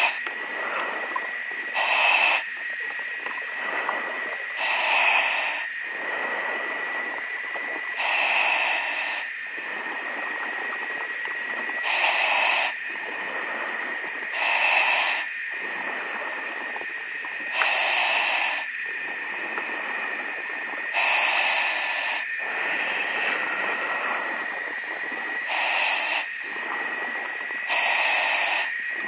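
A diver breathing through a demand regulator underwater: nine rushes of air, about one every three seconds, over a steady high tone and hiss.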